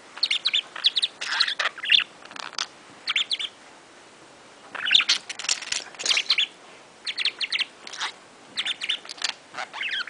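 Budgerigar chirping and warbling in quick bursts of high notes, with a pause of about a second near the middle.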